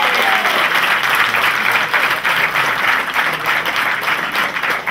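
Tennis spectators applauding: dense, steady clapping from the stands that thins slightly near the end.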